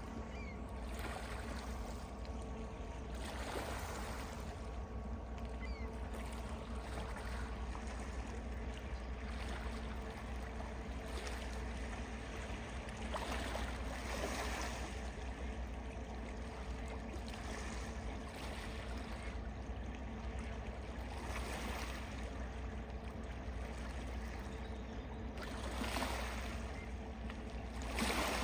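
Water lapping and splashing gently in soft swells every few seconds, over a steady low hum.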